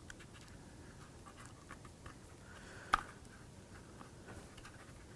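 Quiet handling of small laser-cut kit parts while gluing: faint scattered clicks and light taps, with one sharper click about three seconds in.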